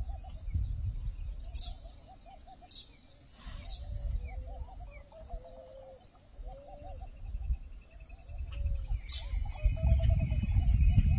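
Birds calling: runs of short, soft, repeated notes and a few sharp high chirps, over a low rumble that grows louder near the end.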